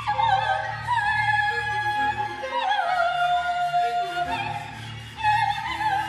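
Operatic soprano singing high held notes with wide vibrato, sliding down to a lower note about halfway through and starting a new phrase near the end, over a low sustained orchestral tone.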